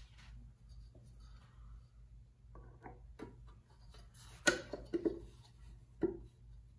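Metal pulley being worked onto the crankshaft nose at the front of a flathead six engine block: a few sharp metallic clinks and knocks starting after a couple of seconds of quiet, the loudest about four and a half seconds in, with one more near the end.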